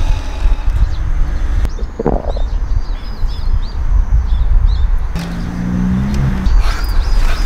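Small birds chirping in short repeated calls over a steady low rumble, with a brief low hum a little past halfway.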